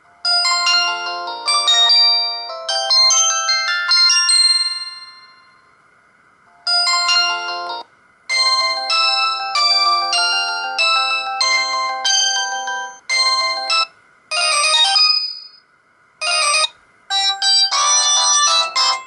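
Stock polyphonic ringtones of a Samsung GT-E2120 mobile phone, playing as short electronic melodies one after another with brief pauses between them.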